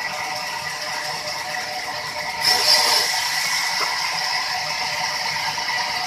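Large sawmill band saw running with a steady whine; about two and a half seconds in, the blade bites into a log and a louder hissing rasp of cutting joins in and carries on.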